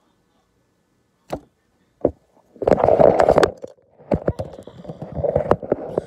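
Handling noise from the phone that is recording: a few sharp knocks, then about a second of loud scraping and rubbing past the halfway point, followed by more tapping and rubbing as the phone is picked up and tilted.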